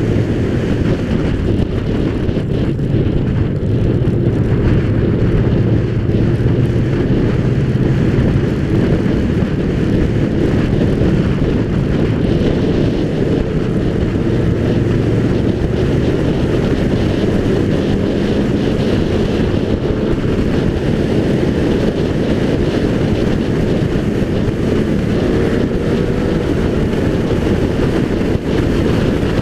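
Race car driving at speed on a circuit: its engine running steadily under load, with the pitch drifting only slowly, mixed with heavy wind rush on a hood-mounted microphone.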